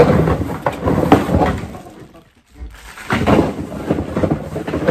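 Thin plastic packaging bag crinkling and rustling as bagged plastic bottles are handled and pulled out of a cardboard shipping box. It comes in two stretches of handling with a short pause about two seconds in.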